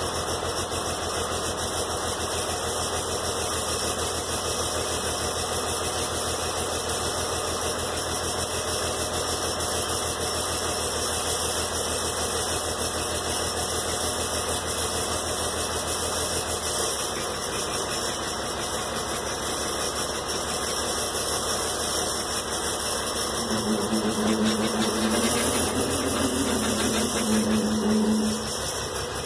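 Old wheel loader's diesel engine running just after a cold start, still warming up; its low note shifts a little past halfway. Near the end a whining tone that rises and falls joins for about five seconds and the sound gets louder.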